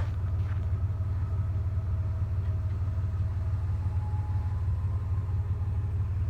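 A steady low rumbling drone from the sky, seeming to come from every direction, its source unidentified, with faint higher steady tones above it and a brief thin tone about four seconds in.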